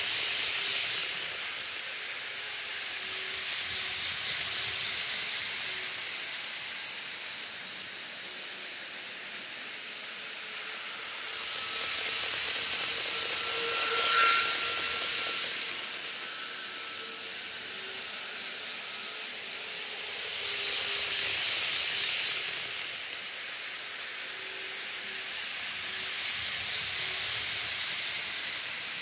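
Model Shinkansen trains running around a model railway layout: a hissing rush of motor and wheel-on-rail noise that swells and fades several times as trains pass close.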